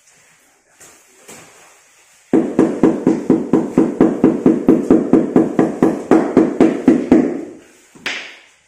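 Rubber mallet tapping a large ceramic floor tile in quick, even strokes, about five dull knocks a second for about five seconds, seating the tile into its wet mortar bed. A short scrape follows near the end.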